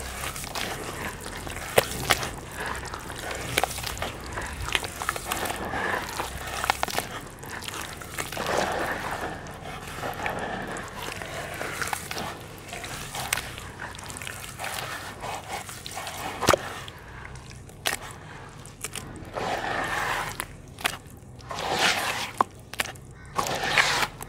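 Hands squeezing, crumbling and stirring red dirt in a basin of muddy water: wet squelching and sloshing, with gritty crackles and sharp little splashes throughout and a few louder sloshes near the end.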